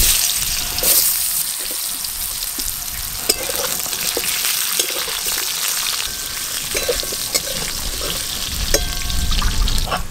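Potato sticks frying in hot oil in a metal wok with dried chillies and whole spices: the sizzle flares up as the potatoes go in, then settles to a steady sizzle. A spatula stirs and scrapes against the pan, giving scattered clicks.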